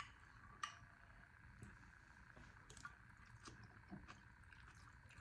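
Near silence: faint room tone with a few soft clicks, the sharpest about two-thirds of a second in.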